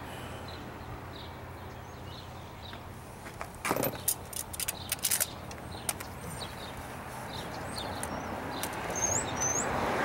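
Hand tools clinking: a spark plug socket and extension handled at the engine's coil wells, a cluster of sharp metal clicks and knocks about four seconds in, over a steady low background hum. Two short high chirps come near the end.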